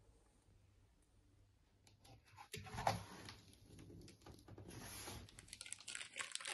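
TV box packaging being handled: cardboard flaps and polystyrene shifting, with one knock about three seconds in, then rustling and crinkling of plastic wrap that goes on to the end.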